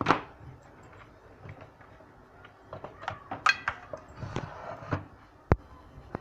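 Scattered clicks and knocks of tools and plastic being handled as a television set is opened up, with a loud click at the start and a sharp tap about five and a half seconds in.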